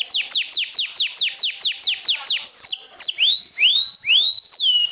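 Canary singing a fast trill of repeated whistled notes that sweep downward, about seven a second. About halfway through it breaks into a few slower notes that slide upward, then returns to falling sweeps near the end.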